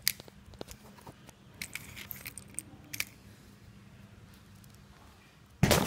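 Light metallic clinks and taps as a small metal canister and a firework launch tube on a wooden base are handled on a tile floor, then one short, loud thump near the end.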